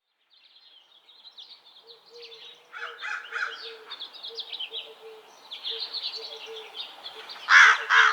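Songbirds chirping and twittering, fading in from silence, with a crow cawing loudly twice near the end.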